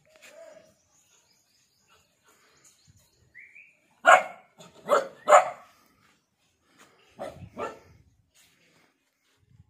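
Red Gultair dog barking: three sharp barks in quick succession about four to five and a half seconds in, then two more barks a couple of seconds later.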